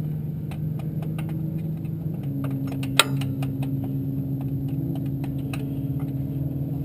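Scattered light metal clinks of hand tools, with one sharp metallic strike about three seconds in, over the steady hum of an idling engine.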